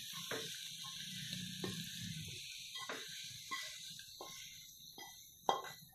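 Fried baby potatoes sliding out of a tilted nonstick pan onto a plate, with scattered soft clicks and scrapes and a sharper knock about five and a half seconds in. A faint steady hiss runs underneath.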